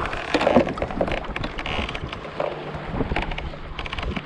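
Wind buffeting the microphone, with a jumble of short knocks, clicks and rustling from gear being handled on a fishing kayak.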